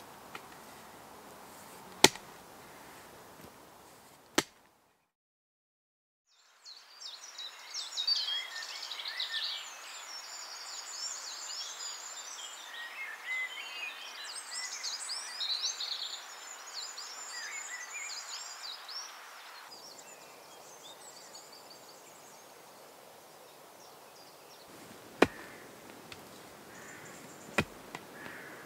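Long-handled wooden digging tool chopping into dry earth, two sharp strikes a couple of seconds apart. After a brief silence, birds sing and chirp over a meadow for about thirteen seconds. The chopping into soil then returns with two more strikes near the end.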